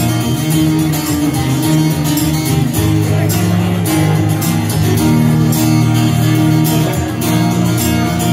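Acoustic guitar strummed in a steady rhythm through an instrumental passage of a song, with no singing.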